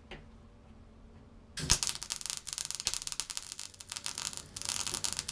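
MIG welder's arc crackling as it welds the outer sill panel on, starting suddenly about a second and a half in and running on as a dense, steady sizzle of sharp crackles.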